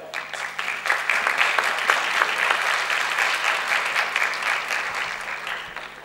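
Audience applauding steadily, then dying away near the end.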